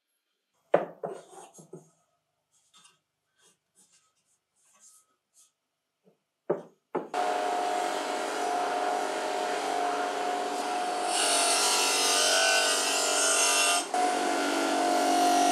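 A few light clicks and knocks, then from about seven seconds in a bench grinder fitted with an abrasive polishing wheel runs with a steady whine. A small metal bracket is pressed against the spinning wheel, adding a bright hissing grind.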